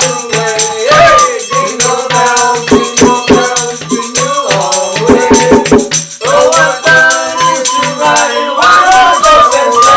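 Homemade music: a wavering melody, with some singing, over shaken hand percussion keeping a steady beat of about three to four strokes a second.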